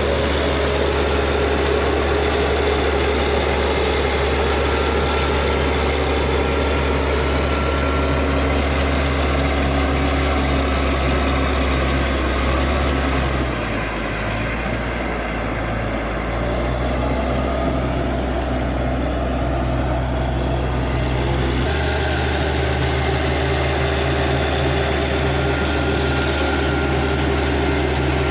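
Caterpillar D6G bulldozer's diesel engine running steadily under work, its note shifting about halfway through, with a brief dip in loudness, and changing again near three-quarters of the way in.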